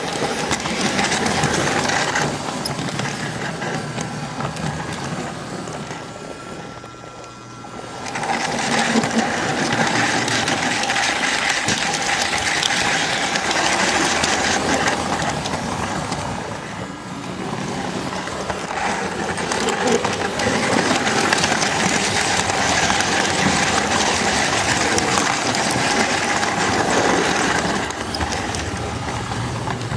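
S-gauge model train running, heard close up from a camcorder riding on the flat car: the Flyonel Docksider locomotive's electric motor with a steady hum and the wheels rolling on the track. It goes quieter for a couple of seconds about six seconds in, then picks up again.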